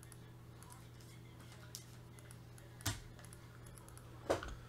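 Faint clicking from working a computer mouse and keyboard, with two sharper clicks about three and four seconds in, over a low steady hum.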